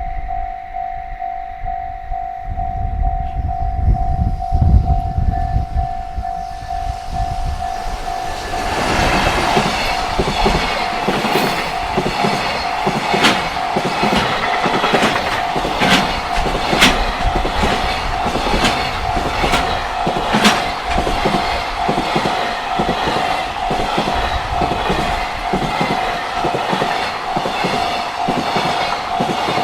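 Level-crossing warning bell ringing steadily while a JR Freight container train comes up with a low rumble, then, about eight seconds in, passes close by with fast, rhythmic clickety-clack of the wagons' wheels over the rail joints.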